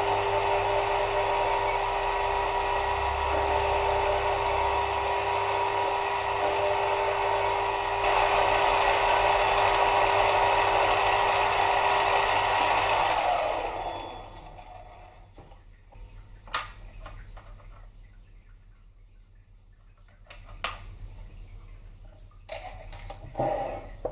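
Mini lathe running as it turns an aluminium bar: a steady motor whine with fixed tones. It winds down and stops about 14 seconds in, followed by a few sharp clicks and light knocks.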